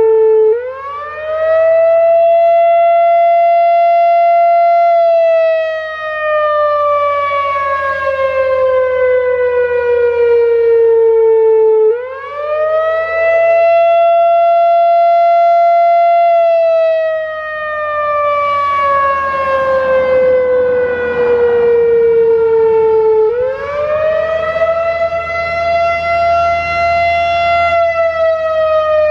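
Analog Whelen WPS-4004 electronic outdoor warning siren sounding its wailing attack signal. The tone climbs quickly, holds for about four seconds, then slides slowly down over about seven seconds, and starts again roughly every eleven seconds: three climbs in all.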